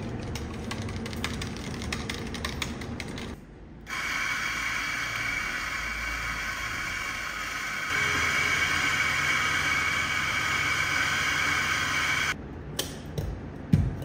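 A spoon clicking against a plastic cup as it stirs, then an electric coffee grinder running steadily for about eight seconds before cutting off. A few knocks follow, the loudest a sharp thump near the end.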